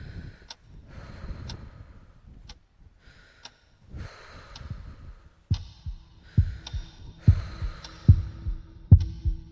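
Film sound design: soft breath-like swells with a faint tick about once a second. About halfway in, a loud heartbeat starts, thudding roughly once a second over a steady low hum.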